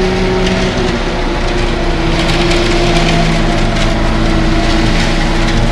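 Toy cement mixer truck's mechanism running: a loud, steady, engine-like whirr with a rattle that starts and stops abruptly.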